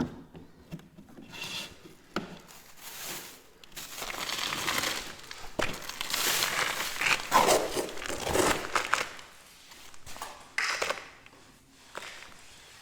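Irregular crinkling and rustling of material being handled, in uneven bursts that are loudest in the middle.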